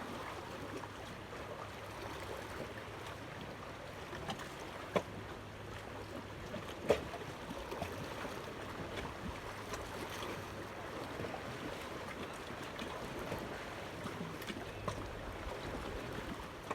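Steady wash of water and wind around an outdoor fishing spot, with two sharp knocks, the second and louder about seven seconds in.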